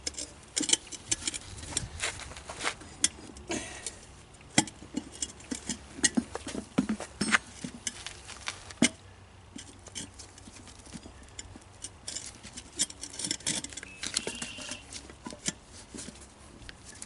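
A pry bar clicking and knocking against a steel wheel rim while levering the tight bead of a new tubeless lawn tractor tire over the rim by hand. The taps come in irregular runs with short pauses, and there is a brief squeak near the end.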